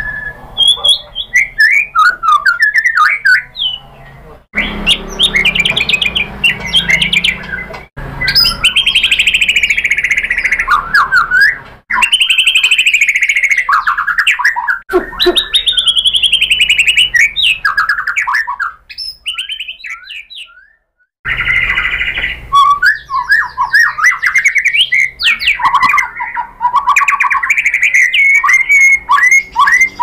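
Male white-rumped shama singing loudly in a rapid, varied run of whistles, trills and chattering phrases, its agitated full song. The song comes in several stretches broken by abrupt cuts.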